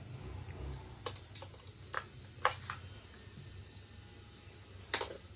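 A handful of short, sharp plastic clicks and taps at irregular intervals, the loudest about halfway through, from a toy RC truck's pistol-grip remote control being handled and turned in the hand.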